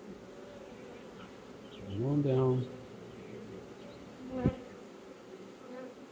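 Honeybees in an open hive giving a steady hum as the colony fans around a newly released virgin queen. A louder, close buzz comes about two seconds in, and a brief sharp knock about four and a half seconds in.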